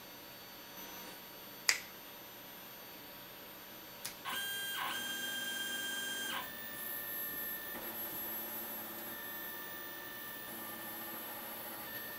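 Stepper motors of a home-built 3D printer whining as the print head moves: a steady high whine begins about four seconds in, jumps in pitch a couple of times, then settles into a steadier, quieter tone. A single sharp click comes about two seconds in.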